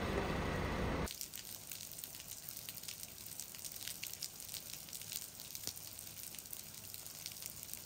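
For about the first second a fire engine's engine runs with a low, steady rumble; then it cuts to a quieter scene of many small, irregular drips of water falling and splashing into puddles on a flooded car-park floor.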